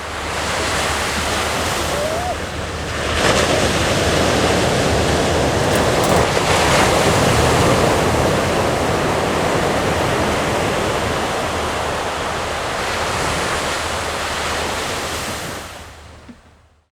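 Sea waves washing onto the shore: a steady wash of surf that swells about three seconds in and fades out near the end.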